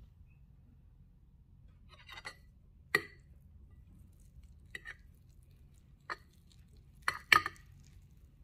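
A metal fork clinking against a plate: a handful of short, sharp clinks spread out over several seconds, the loudest pair near the end.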